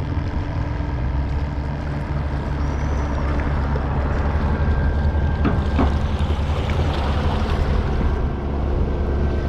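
A steady low engine drone, like a motor idling close by, runs throughout, with two light clicks a little past the middle.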